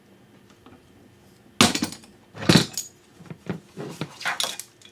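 Wiper-arm puller being worked with a Crescent wrench: metal clicks and knocks, with two louder sharp clanks about a second and a half and two and a half seconds in, as the wiper arm comes off its tapered spline.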